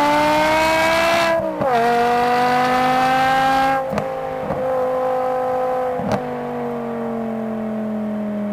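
BMW E60 M5's V10 heard from a microphone at the boot, pulling hard and climbing in pitch. A quick upshift about a second and a half in drops the revs, and it pulls again. About four seconds in the throttle closes and the engine runs on quieter with the pitch slowly falling, with a few short ticks.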